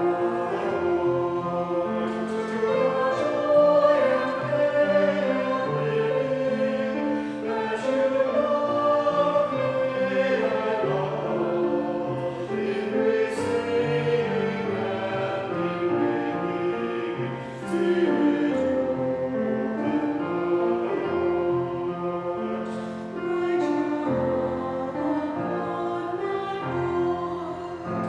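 A small mixed choir of four voices singing a hymn with piano accompaniment.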